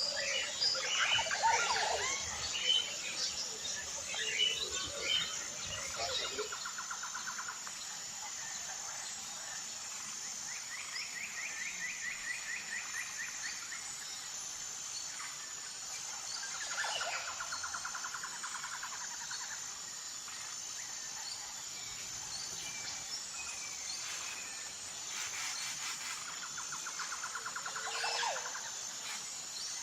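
Birds chirping and calling, busiest in the first six seconds, then a rapid rattling trill repeated four times over the rest of the stretch.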